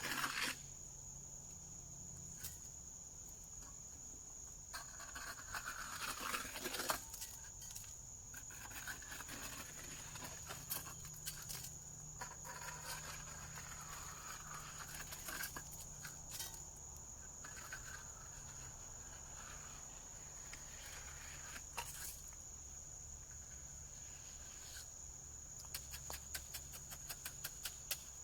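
Insects droning on one steady high pitch, with scattered faint clicks, knocks and brief rustles over it, and a quick run of clicks near the end.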